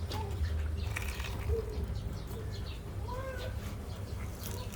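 Short birdlike calls several times over a steady low hum, with scattered small clicks.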